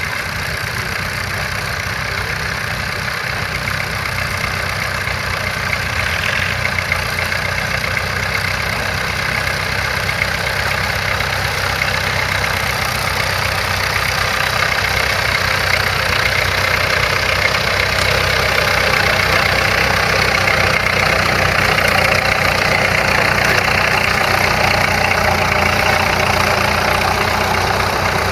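Vintage crawler tractor engine running steadily, growing gradually louder.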